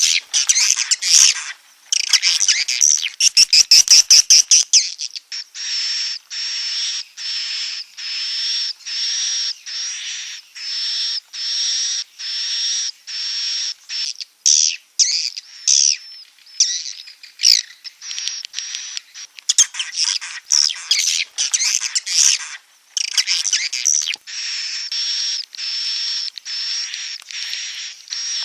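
Swiftlet call sound played through swiftlet-house speakers: short high chirps repeating about once a second. In the first few seconds, and again for a stretch around the middle, the chirps come faster and more jumbled.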